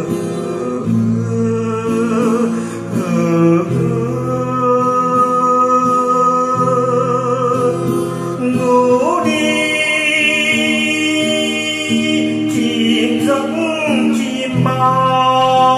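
Background music: a slow song with a sung, wavering melody in long held notes over sustained chords.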